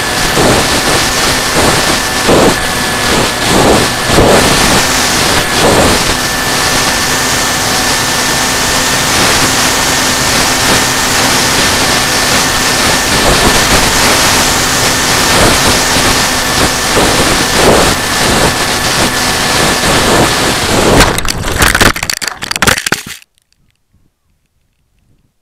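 Wind rushing over the onboard camera of a Bixler foam RC plane in flight, with the steady whine of its electric motor and propeller. About 21 seconds in come irregular scraping knocks as the plane hits the ground and its nose snaps off, then sudden near silence as the motor stops with the battery thrown out.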